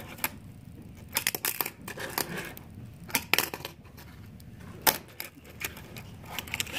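Tech Deck fingerboard clacking and tapping on a hard counter: irregular sharp clicks, some single, some in quick clusters.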